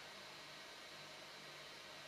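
Near silence: steady room tone and faint hiss, with a low, even hum underneath.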